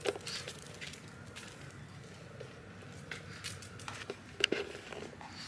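Scattered light clicks and knocks in a quiet room, with a sharper knock about four and a half seconds in.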